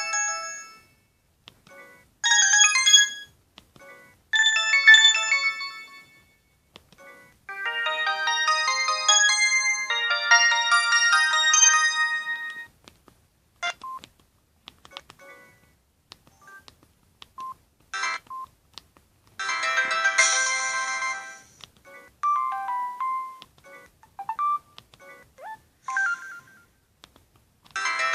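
Samsung SGH-E250 mobile phone playing its preloaded ringtones in turn: several short electronic melodies, each a second to a few seconds long, with gaps and short single beeps between them.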